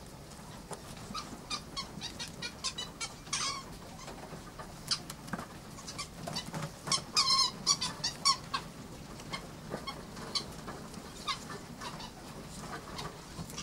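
Farmed mink in wire-mesh cages giving a series of short, sharp squeaks and chirps, with a longer, harsher call about seven seconds in.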